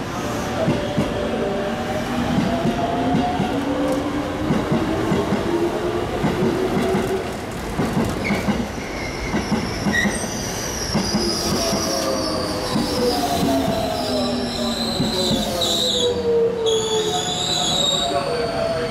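Keikyu 600 series electric train pulling into the platform and braking to a stop. Its wheels knock over the rail joints and points in the first half, with a whine that falls in pitch as it slows, and wheel squeal in the second half.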